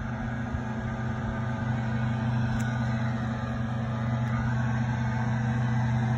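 Ram 1500 pickup truck's engine idling with a steady low hum.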